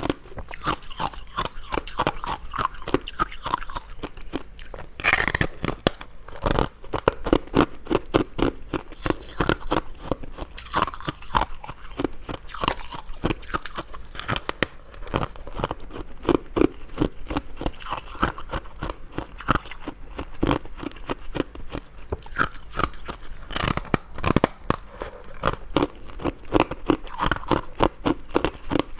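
A person crunching and chewing hard ice close to the microphone: a dense, continuous crackle of bites and grinding, with a few sharper, louder cracks about five, six and a half and twenty-three seconds in.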